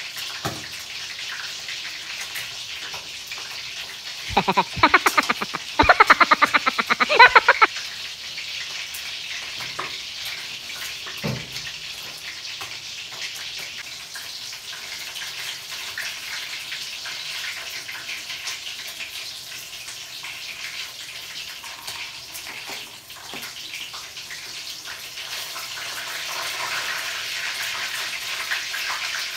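Chicken pieces frying in oil in a wok over a gas burner: a steady sizzle. About four seconds in, a loud run of rapid, even clicks lasts about three seconds.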